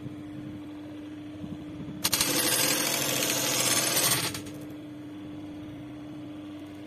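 Juki industrial buttonhole sewing machine: its motor hums steadily, and about two seconds in it runs a loud, rapid stitching cycle lasting about two seconds before dropping back to the hum.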